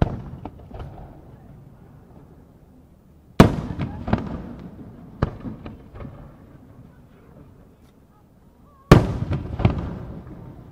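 Aerial firework shells bursting overhead: two loud booms about five and a half seconds apart, each followed by a few smaller pops that fade away.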